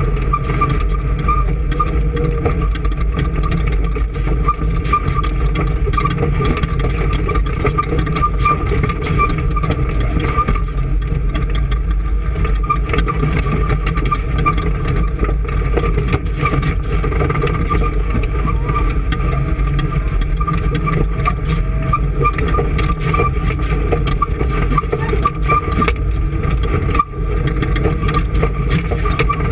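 An engine running steadily at a constant speed, with a steady whine and a fast ticking clatter over its low drone.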